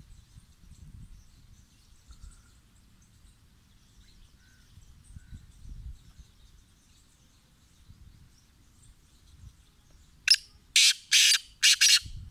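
Male black francolin giving its harsh, grating call near the end: four loud rasping notes in quick succession, over in under two seconds. Before it there is only a faint low rumble and faint high chirping.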